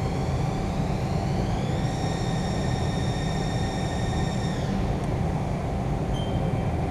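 Haas ST-10 CNC lathe running, with a high spindle-drive whine over a steady low rumble. The whine rises in pitch over about a second and a half, holds, then falls away about five seconds in, as the spindle speed changes under constant surface speed mode. A short beep from the control keypad comes near the end.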